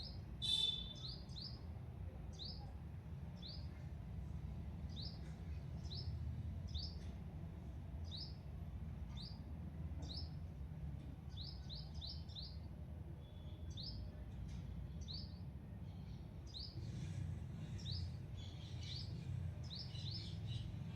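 A small bird repeating a short, rising chirp about once or twice a second, with a louder, harsher call just after the start. A steady low rumble runs underneath.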